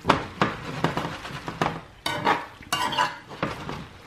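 A metal slotted spoon stirring ackee and saltfish in a metal frying pan: irregular scrapes and clinks against the pan.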